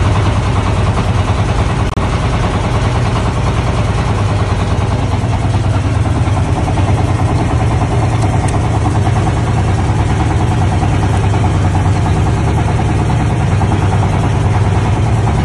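Boat engine idling, a steady low running sound.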